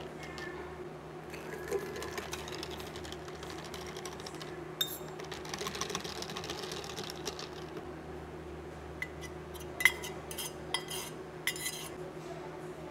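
Long metal spoon stirring iced drinks in glass tumblers, the spoon and ice clinking against the glass, with several sharp clinks in the second half. Under it runs a steady low machine hum.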